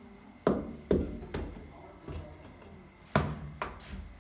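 A thin metal rod jabbing and prying at hard-packed earth and broken plaster at the foot of a wall: five sharp knocks, three in the first second and a half, then two more about three seconds in.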